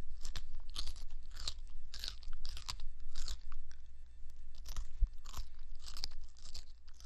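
Eastern lubber grasshopper chewing the edge of a leaf, its mandibles working side to side to cut off pieces. Crisp crunching bites come about two a second, with a short pause a little past the middle.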